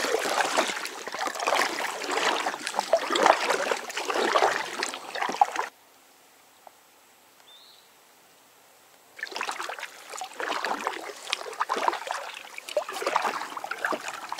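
Packraft paddling: water splashing and trickling off the paddle blades with each stroke. It breaks off abruptly for about three seconds of near silence in the middle, then starts again.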